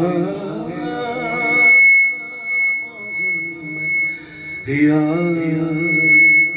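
A man singing a manqabat, an Urdu devotional poem, unaccompanied, drawing out long wavering notes in two phrases with a pause of about two seconds between. A steady high whistle rings under the voice from about a second in and returns near the end.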